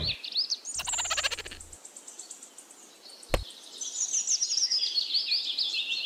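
Birds chirping and trilling, with a fast rattling trill about a second in and a falling run of chirps in the second half. A single sharp click sounds a little past the middle.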